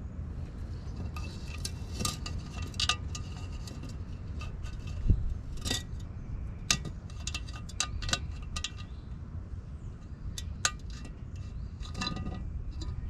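Small metal hand tools clinking and tapping on metal, a dozen or so sharp clinks with a brief ring, scattered unevenly over a steady low background rumble.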